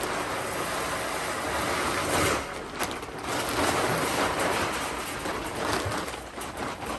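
Grain feed pouring steadily out of a sack into a container, a continuous rushing hiss that stops near the end.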